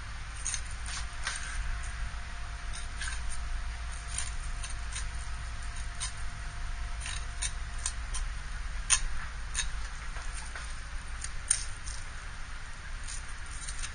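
A Japanese kitchen knife cutting through a kinmedai along its bones and tapping the plastic cutting board: irregular small clicks and crunches, several a second, over a steady low hum.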